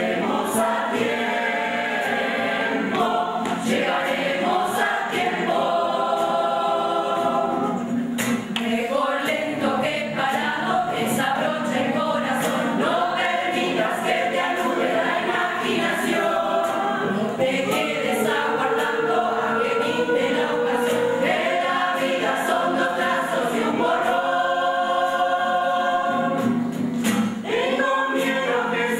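Municipal choir singing in several voice parts, with long held chords.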